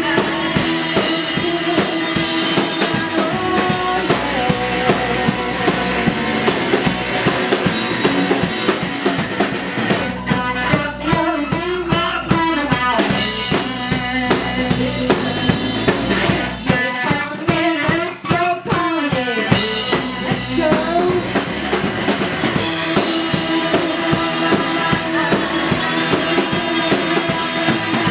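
Live rock band playing a song at full volume, driven by a drum kit with bass drum and snare, with bass and guitar. Past the middle the cymbals, and then the bass, drop back for a few seconds before the full band comes back in.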